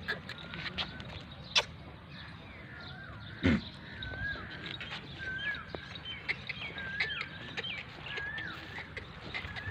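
A bird calling over and over: a short whistled note that rises and falls, about once a second. Scattered clicks and a single loud knock about three and a half seconds in.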